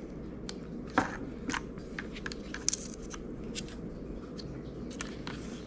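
Plastic clock spring and steering-column switch assembly handled and fitted together: scattered light clicks and rattles, the sharpest about a second in.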